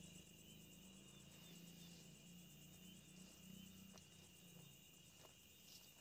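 Faint crickets chirping steadily, a thin continuous trill in near-quiet.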